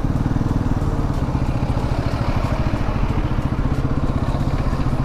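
Bajaj Pulsar NS200's single-cylinder engine running steadily at low revs, a rapid even pulse, as the motorcycle crawls along in stop-go traffic.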